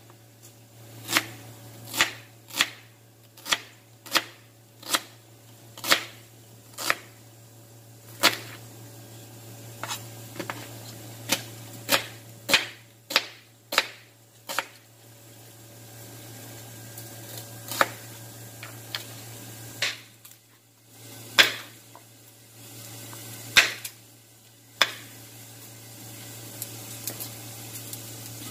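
Chef's knife slicing a red onion on a wooden cutting board: a series of sharp knocks of the blade on the board, about one or two a second, thinning out after about fifteen seconds to a few scattered louder knocks. A steady low hum runs underneath.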